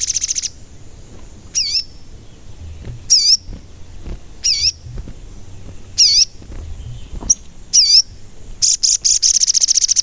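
A sogon singing: short wavering whistled "cuit" notes repeated about every second and a half, with a fast rattling trill near the end.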